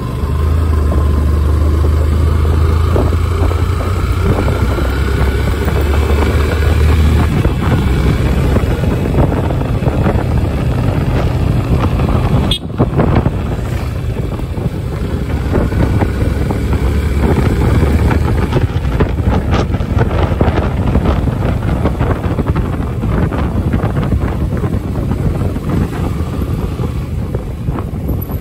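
Yamaha FZ's single-cylinder engine running while the bike is ridden, with wind rushing over the handlebar-mounted microphone. The revs climb over the first few seconds, and there is a brief break about twelve seconds in.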